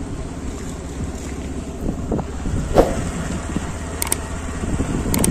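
Motorcycle engine running steadily while riding, with wind buffeting the microphone and a few brief bumps and clicks along the way.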